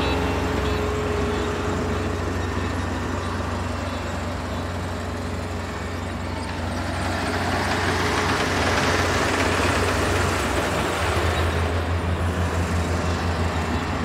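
Kubota DR472 combine harvester's diesel engine running under load with a steady low hum, its machinery noise swelling louder about halfway through and then easing off.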